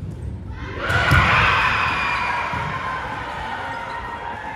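A volleyball thumps about a second in, and players and spectators break into cheering and shouting that swells quickly and then slowly dies down.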